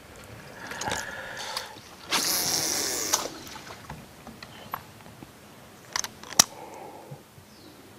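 Fishing reel spool running for about a second as a topwater plug is cast, then a few sharp clicks of tackle handling a few seconds later.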